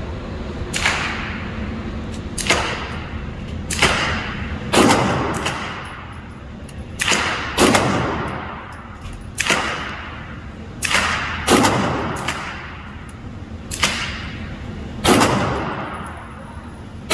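Pistol shots fired one at a time at a slow, deliberate pace: about a dozen shots one to two seconds apart, each followed by a decaying echo.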